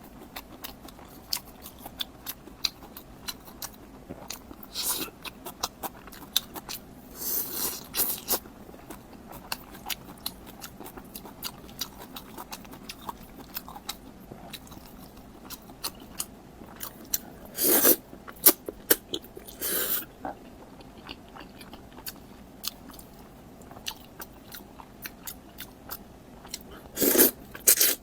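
Close-miked crunchy eating: biting and chewing crisp food, with many small crackling clicks and louder crunching bites at intervals.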